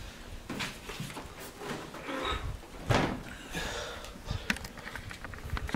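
Large PC tower case being turned around on a tabletop: scuffing and rubbing from the handling, broken by several knocks and clicks.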